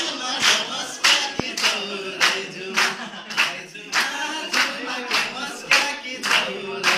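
Hands clapping a steady beat, a little under two claps a second, keeping time to a Nepali folk song sung along.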